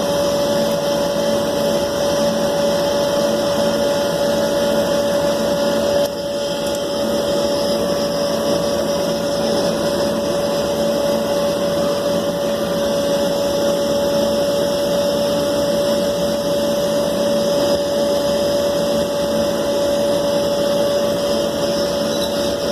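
A small electric motor, like that of a power tool, running steadily with a constant whine, dipping briefly about six seconds in.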